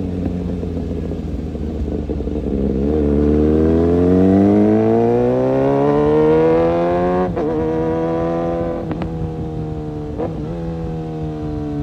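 Kawasaki ZX-6R's inline-four engine rising in revs for about four seconds. About seven seconds in the pitch drops suddenly with a click, as on an upshift. It then runs at steadier revs, with two short dips.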